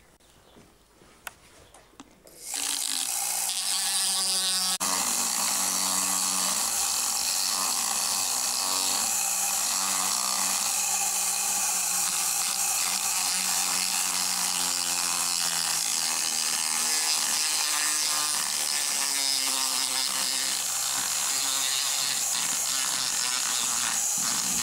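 Motorized equine dental float, a power tool with a spinning grinding disc, starts about two and a half seconds in and runs steadily while grinding down a horse's incisors. Its pitch wavers as the disc bears on the teeth.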